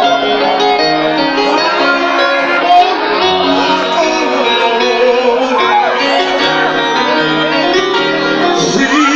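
Loud live music: a male singer with keyboard-led backing, sustained notes and a sliding vocal line over a steady accompaniment.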